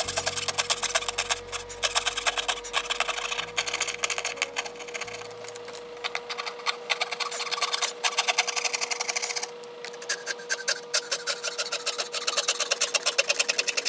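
Coping saw cutting through thin plywood in rapid back-and-forth strokes, with a brief pause about ten seconds in. A faint steady hum runs underneath.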